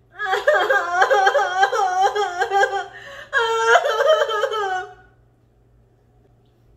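A woman moaning and whimpering in a wavering, rising-and-falling voice, in pain from the burn of a Carolina Reaper-coated chip, stopping about five seconds in.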